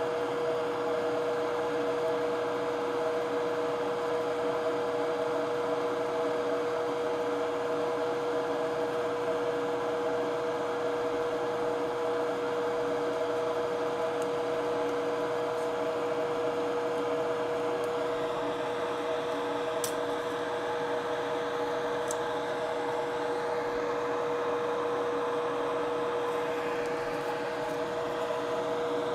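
Steady hum of a small electric fan-driven bench machine, carrying a constant tone. About two-thirds of the way in, a higher hiss joins it.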